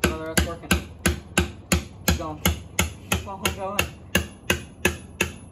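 Steady hammer blows on a steel pry bar wedged into the joint between the cylinder head and block of a small-block Chevy 350, about three strikes a second, some ringing, as the stuck head is driven loose.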